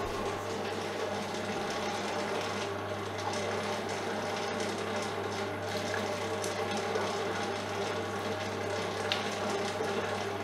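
Maxima MSM8 single-speed spiral mixer running steadily with a motor hum, its spiral hook working a wet pizza dough that has just taken more water. The dough gives a wet squishing sound, the sign that the dough ball has broken and is still absorbing the water.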